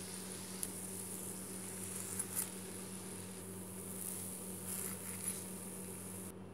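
Faint steady sizzle of hot frying oil over a low hum, with a few faint clicks.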